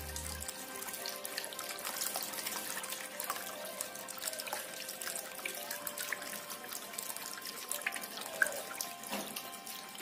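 Water pouring steadily from the spouts of a tiered cement waterfall fountain, splashing and trickling into the bowls below, with background music.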